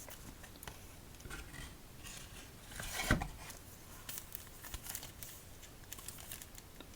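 Boxed playing card decks being handled close up, with scattered light taps and crinkling of packaging, and one louder rustle about three seconds in.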